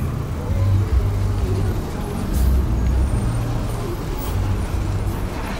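Street traffic: car and bus engines running close by, with a low uneven rumble throughout and a couple of brief hisses.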